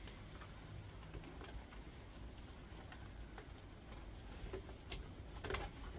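Quiet handling of metal scrap parts: a few faint, scattered clicks and light taps over a low background rumble.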